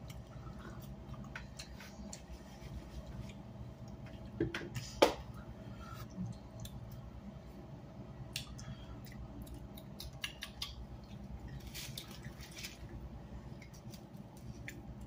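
Faint scattered clicks and taps of food and dishware being handled at a meal, with one sharper click about five seconds in, over a low steady hum.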